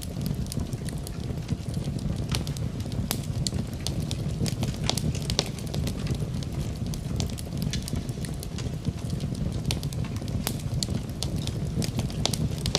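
Wood fire in a fireplace crackling: irregular sharp pops and snaps over a steady low rumble of burning flames.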